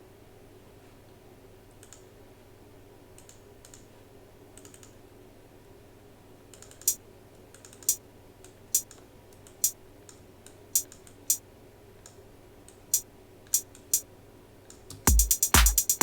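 Faint mouse clicks, then single closed hi-hat samples auditioned one at a time: about nine short, crisp, high hits at irregular gaps. Near the end a programmed drum loop starts, with a 4/4 kick drum pitched around A under the hats.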